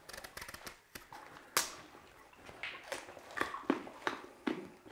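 Scattered short clicks and knocks of someone settling down and handling things on a cave floor, with one sharper knock about a second and a half in and a busier run of them in the second half.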